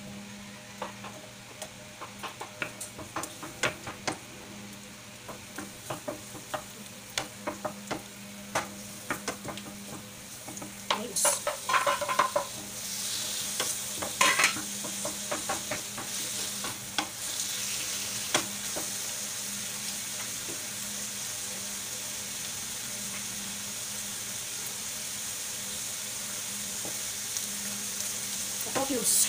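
A wooden spoon taps and scrapes against a plate and frying pan as vegetables are pushed into hot oil. A little before halfway a few louder clatters come, and then the oil sizzles steadily as the tomatoes and onions sauté.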